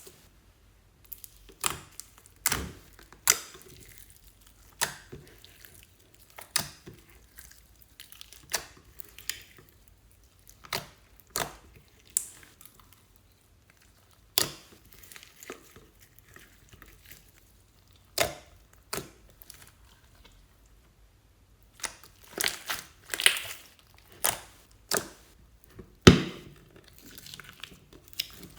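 Slime being squeezed and pressed by hand, making irregular sticky pops, clicks and crackles, with a cluster of louder ones near the end.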